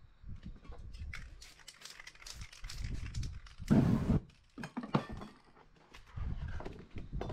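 A sharp series of clicks and rattles, then about four seconds in a short, loud whoosh of flame sweeping over freshly spray-painted poster board, the fire flash-drying the paint. Near the end comes the scrape and shuffle of the stiff board sheets being slid around.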